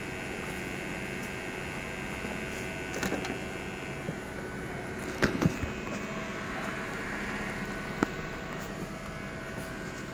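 Steady machine hum of a workshop, with a higher whine in it that stops about four seconds in, and a few sharp knocks, the loudest a double knock about five seconds in.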